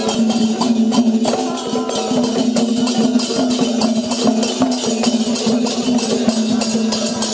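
Sankirtan-style devotional music: hand cymbals and drums struck in a fast, even rhythm over a steady held note.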